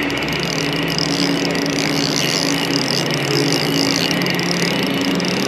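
Fishing reel being cranked steadily: a constant whirring gear hum with fast, fine clicking as a hooked trout is reeled in.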